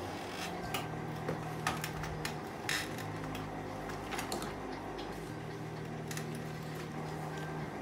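Scattered light knocks and clicks, about one a second, as small jars and bottles are handled on a wooden shelf. A steady low hum runs underneath.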